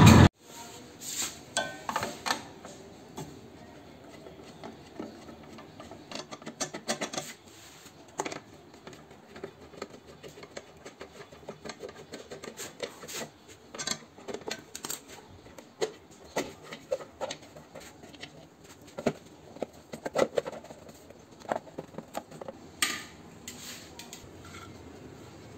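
Right at the start a two-stroke Bajaj Chetak scooter engine cuts off abruptly. Then come scattered light metallic clicks, taps and scrapes as a screwdriver works the tail-light lens screws and the plastic lens and metal luggage rack are handled.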